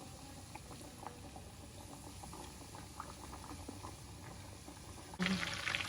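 Oil in a frying pan, faintly bubbling and crackling with scattered light ticks. Near the end a sudden, much louder frying sizzle begins as the breaded chicken cheese kebabs cook in the oil.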